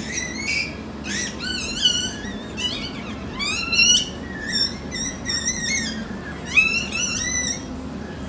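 Newborn Staffordshire bull terrier puppies, just delivered by caesarean, crying in many short, high-pitched squeals that waver up and down in pitch.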